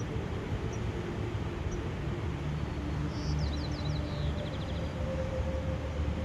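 Steady rushing outdoor nature ambience with low held tones beneath. About three seconds in, a bird gives a short song of quick, high, descending notes.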